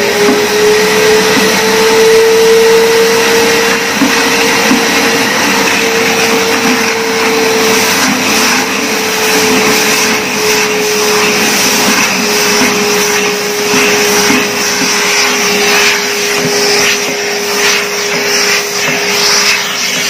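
Euroclean WDX2 wet-and-dry vacuum cleaner running steadily, a high motor hum over the rush of suction. Its note rises slightly in the first couple of seconds, then eases down a little. Irregular crackles come through from about eight seconds in.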